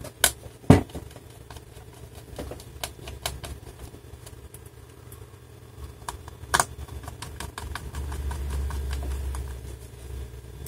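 Small screws being picked up and driven into a laptop's battery with a hand screwdriver: two sharp clicks and knocks near the start, then a run of faint ticks from the screwdriver turning, another knock about six and a half seconds in, and a low rumble near the end.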